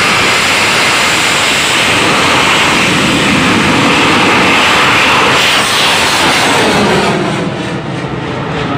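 A bang fai, a large black-powder festival rocket, launching: a loud, steady rushing roar from its burning motor, with a falling sweep in pitch about six seconds in as it climbs away, after which it grows quieter.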